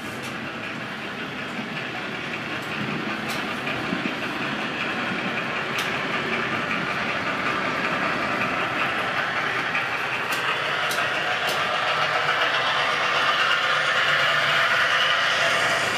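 HO scale Märklin model freight train rolling along three-rail track: a steady whirring rattle of small metal wheels and motor, with a few sharp clicks over rail joints and switches. It grows steadily louder, loudest near the end.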